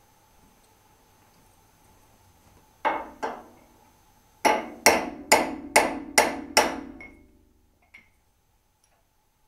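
Hammer knocks against a steel panel radiator, tapping it along its slotted wall brackets to adjust its position: two knocks, then six quicker ones a little under half a second apart, each ringing briefly.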